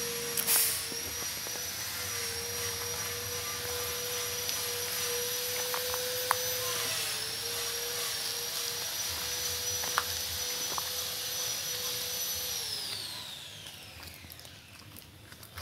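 Electric motor of a workshop machine running with a steady whine and hiss. Near the end it is switched off and spins down, its whine falling in pitch and fading out.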